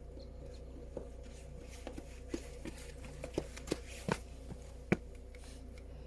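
Snow crunching as it is handled and packed: about a dozen irregular, sharp crunches over a few seconds, over a faint steady hum.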